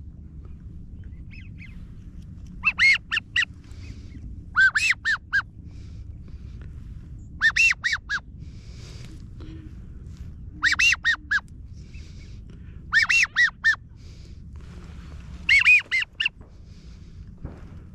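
Geese calling: short groups of three to five high, yelping honks, repeated every two to three seconds, over a low steady rumble of wind.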